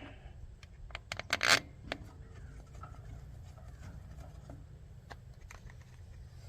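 Small clicks and rattles of screws and a cover being handled during reassembly, with a few sharp clicks about a second and a half in, then faint scattered ticks. A steady low hum runs underneath.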